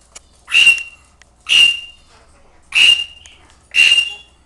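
Princess of Wales parrot screaming: four loud, shrill calls, about one a second.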